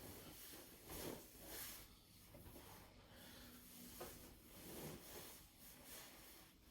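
Near silence in a small room: a few faint, soft breaths and light rustling.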